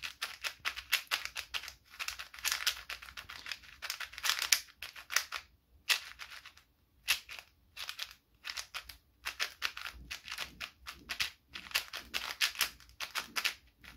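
Cosmic MGC magnetic 4x4 speedcube turned rapidly by hand: fast runs of plastic clicking as the layers snap round, broken by a couple of short pauses near the middle. The cube is fresh out of the box and still turns rather slowly.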